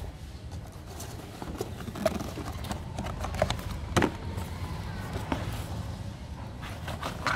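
Handling noises as a dust bag is fitted to a Karcher MV4 vacuum cleaner: scattered light clicks and knocks of plastic and paper, over a steady low hum in the background.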